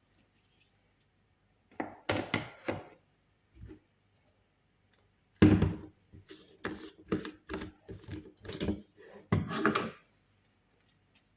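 A series of knocks and thuds: a quick cluster about two seconds in, a single one just after, then a longer run of them from about the middle, the first of that run the loudest.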